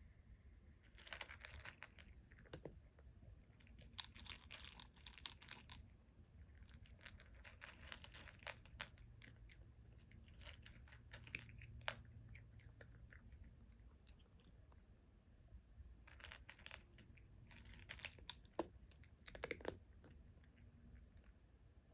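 Black cat chewing and crunching its food in short bursts of crackly bites, about six bouts with pauses between them.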